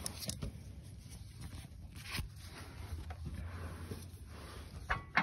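Scraping and rustling handling noise with a few light metallic clicks as a band-type oil filter wrench and a shop towel are moved about under a car; the two sharpest clicks come near the end.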